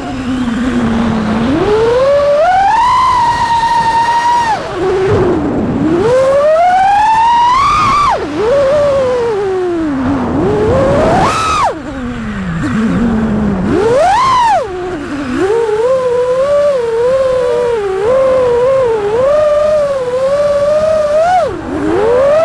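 FPV quadcopter's BotGrinder V4 1750kv brushless motors, on Bluejay ESC firmware, whining through Ethix Candy Kane propellers, the pitch rising and falling with the throttle. Several sharp climbs to a high whine on punch-outs are each followed by a drop; in the last third the motors hold a steadier, wavering pitch.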